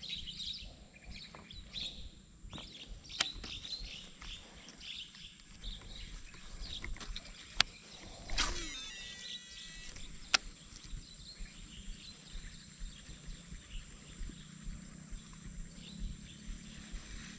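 Outdoor ambience of birds chirping over a steady high-pitched whine, with a few sharp clicks.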